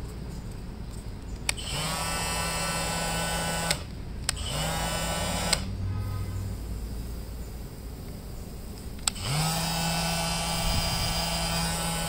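Makita DTM52 brushless cordless oscillating multi-tool switched on three times and run free: each run starts with a click and a quick rise to a steady buzzing whine, lasting about two seconds, one second and nearly three seconds.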